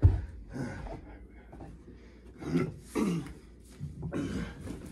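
Short grunts and strained vocal noises from men wrestling on a mattress, with a low thump at the start.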